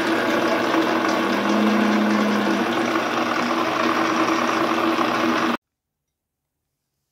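1967 FP800 milling machine running under power, a steady mechanical hum with a few steady pitched tones. The hum cuts off abruptly about five and a half seconds in.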